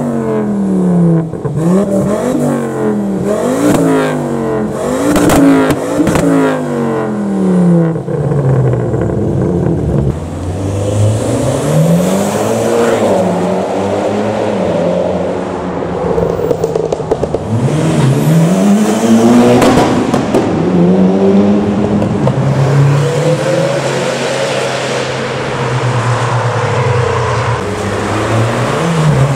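Performance car engines revving hard: a run of quick rev blips, each climbing and dropping in pitch, with sharp cracks among them. Later come a few longer rising runs up through the revs, and it settles to a steadier engine note near the end.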